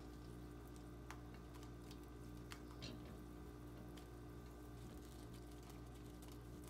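Faint scattered taps and clicks as sliced mushrooms, onion and tofu are slid off a wooden cutting board into a pot of broth, over a steady low hum.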